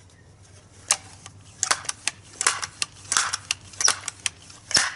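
Crosman 760 Pumpmaster air rifle being worked and readied to shoot: a series of about ten sharp plastic-and-metal clacks, roughly two a second, the last one the loudest.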